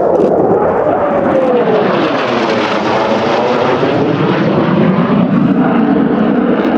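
Military jet flying past with a loud engine roar, a tone in it falling in pitch as it passes.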